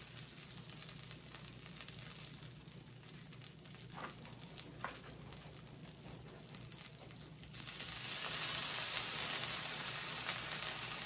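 Birria taco tortillas frying in oil in a pan, a steady sizzle that suddenly grows louder about seven and a half seconds in. Two light clicks come around four and five seconds in.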